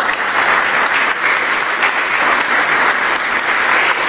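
Audience applauding, a dense, steady clapping that starts suddenly and stays loud.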